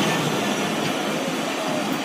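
Passenger coaches of a departing express train rolling past at low speed, a steady noise of wheels running on the track.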